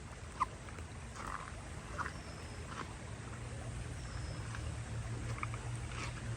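Outdoor nature ambience: scattered short animal calls, with a few faint high whistles, over a steady low rumble. A sharp click comes under half a second in.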